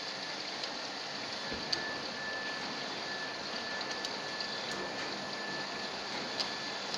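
Commercial dry-cleaning machine running: a steady hiss with a thin, steady high whine and a few light ticks.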